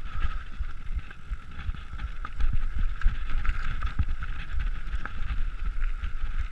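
Nukeproof Mega TR mountain bike rolling down a gravel and dirt trail: steady tyre rumble over loose stones with frequent knocks and rattles from the bike, and wind on the microphone.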